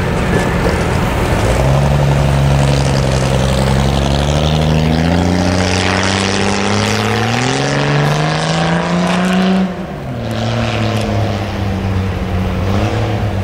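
An engine running under load, its pitch climbing slowly for about eight seconds, then dropping sharply near ten seconds in and settling lower.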